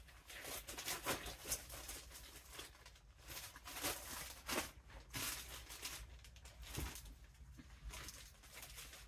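Plastic packaging bags and clothing rustling and crinkling as garments are handled and put back into their bags, in a run of irregular rustles.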